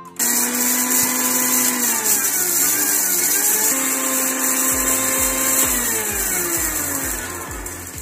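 Electric mixer grinder running at full speed with its steel jar, dry-grinding fennel seeds and dried red chillies. It starts abruptly a moment in, its pitch dips a few times, and it eases off near the end.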